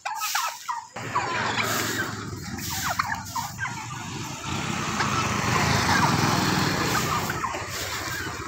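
Two domestic turkeys calling in short, quick bursts as they fight. A motorcycle's engine comes in about a second in, grows louder toward the middle and fades near the end.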